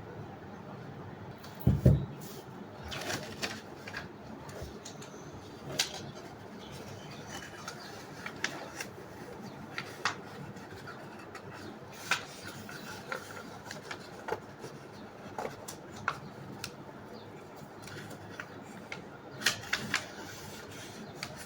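A sheet of paper being folded and creased by hand: scattered short crinkles and taps, with one louder low thump about two seconds in.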